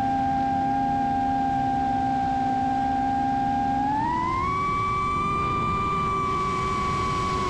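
FPV quadcopter's motors and propellers whining steadily over rushing wind noise. About four seconds in, the pitch glides smoothly higher as the motors speed up, then holds.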